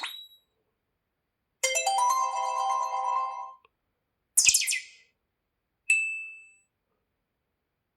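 Tecno Pop 2F smartphone notification tones previewed one after another with short gaps: a brief chime at the start, a two-second chime of several notes about a second and a half in, a short bright sound about four and a half seconds in, and a single ding about six seconds in that rings out and fades.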